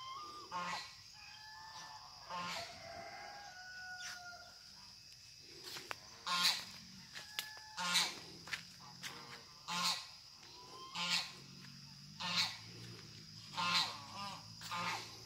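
Farm fowl calling: short, loud calls repeated about every second and a half, most regular from about six seconds in. Softer sliding whistled bird notes come in the first few seconds, and a steady high-pitched whine runs underneath.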